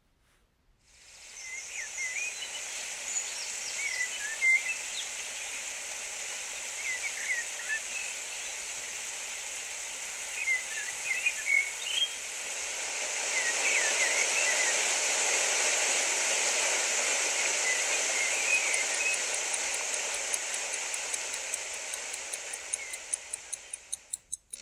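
Steady rush of running creek water with small birds chirping. It fades in, swells midway and fades out near the end, where a watch starts ticking rapidly, about four ticks a second.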